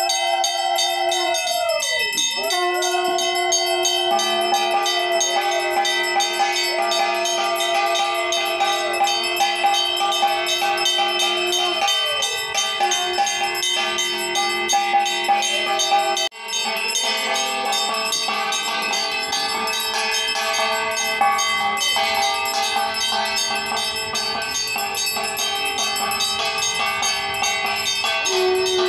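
Aarti bells ringing rapidly and without a break, with a long wavering tone over them that rises and falls in drawn-out sweeps during the first dozen seconds.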